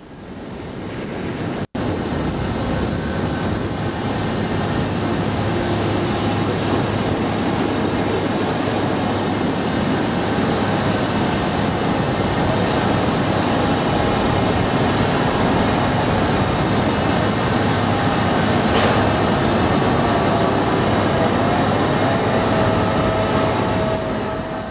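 Steady, loud mechanical roar of offshore platform machinery on the outer deck, with faint steady hums running through it. It swells up over the first couple of seconds and briefly cuts out once.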